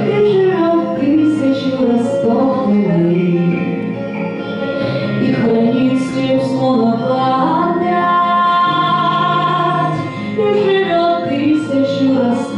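A woman singing a song with long held notes over instrumental accompaniment, as a vocal student's run-through.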